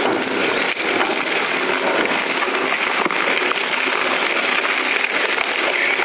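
Twin-shaft industrial shredder, its hooked steel cutter discs tearing up a white slab: a steady, dense crackling and crunching with many sharp cracks.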